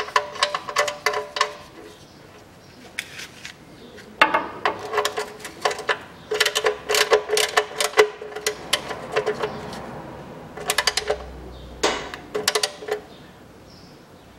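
Ratchet wrench clicking in quick runs on its back-swings as the oil-pan drain plug is screwed back in, with short pauses between the runs.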